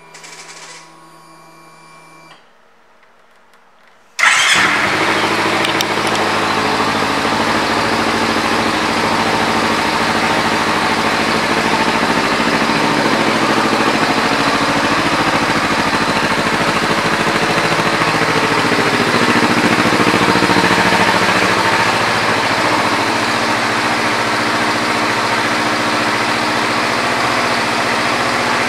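Kawasaki Ninja 300's parallel-twin engine, fitted with an aftermarket exhaust, starting up about four seconds in after a faint hum. It then runs at a steady idle.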